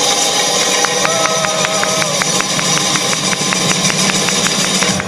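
Khaleegy/zaar dance music played loud over the hall's speakers: dense drumming with a fast even beat of about five strokes a second and a held wavering note over it, cutting off right at the end.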